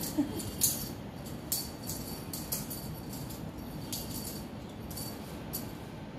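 Small bell on a feather cat-teaser wand jingling in a series of irregular shakes as the toy is swung about, over a steady low background noise.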